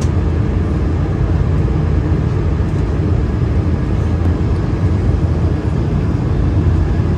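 Steady, loud rumble of airliner cabin noise inside an Airbus A220-300: its Pratt & Whitney PW1500G geared turbofan engines and airflow, mostly low in pitch with an even hiss above.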